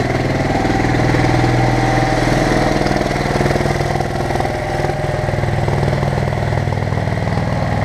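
Bobcat M371 skid steer's diesel engine running steadily under throttle as the machine is driven on ice, with a brief dip in loudness about four and a half seconds in.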